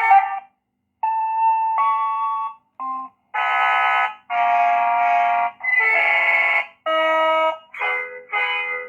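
Electronic motorcycle horn module playing a tune through a horn loudspeaker: a run of about nine separate held notes at changing pitches, each half a second to a second long, with short gaps between, starting about a second in.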